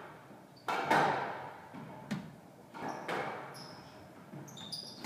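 Squash rally: the ball is struck by rackets and smacks off the walls in a string of sharp, echoing hits about a second apart, with brief high-pitched shoe squeaks on the court floor near the end.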